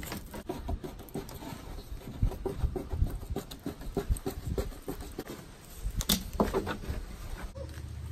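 Hand tin snips cutting a thin painted metal sheet: a run of short, irregular crunching snips, with a louder clatter of the sheet about six seconds in. Near the end a cordless drill's motor starts to whir.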